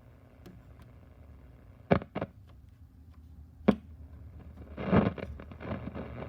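Vintage vacuum-tube radio's speaker humming, with sharp pops and a burst of crackling near the end as the volume control is turned: a scratchy volume control, dirty rather than broken.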